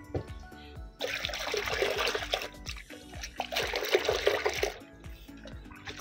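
Water pouring and splashing into a new clay pot, in two spells of about a second and a half each, as the pot is set to soak with a little washing liquid.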